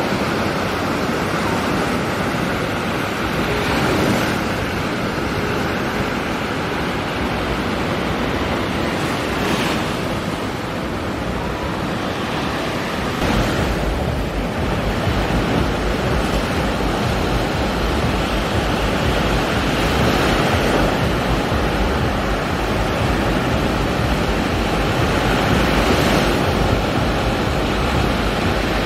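Black Sea surf breaking on a sandy beach, a wave crashing and washing up every five or six seconds. Wind buffets the microphone, with a low rumble that grows from about halfway through.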